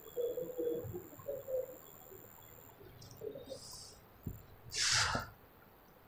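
Faint, distant talking in the room, with a short hiss about five seconds in.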